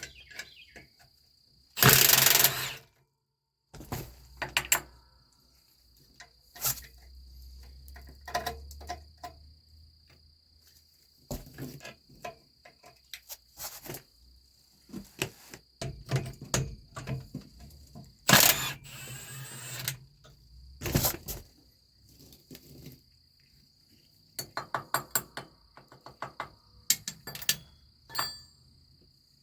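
Metal brake parts and hand tools clanking and knocking at irregular intervals while trailer drum-brake hardware is worked on, with two longer, louder rattles about two seconds in and past the middle. A steady thin high-pitched trill runs underneath.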